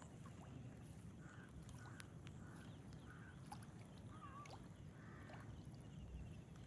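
Faint outdoor river ambience: a low steady rumble with scattered short, faint bird calls and a few light clicks.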